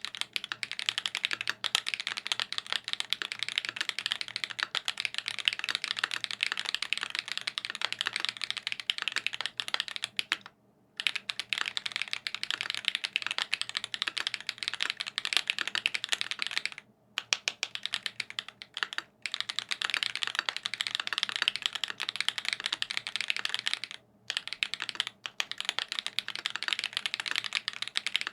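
Fast, continuous typing on a custom tenkeyless mechanical keyboard with a 5 mm PVC plate, lubed SWK X OUTVA Black tactile switches and GMK keycaps: a dense stream of keystroke clacks, broken by brief pauses about eleven, seventeen and twenty-four seconds in.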